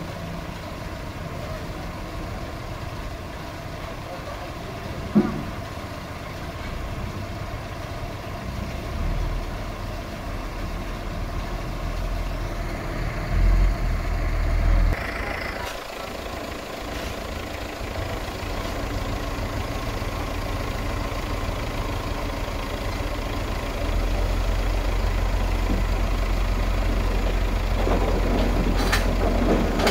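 Diesel dump truck engine running as the truck reverses onto the fill, then held at higher revs from about two-thirds of the way through while the hydraulic hoist raises the bed and the load of dirt slides off. A single sharp knock sounds about five seconds in.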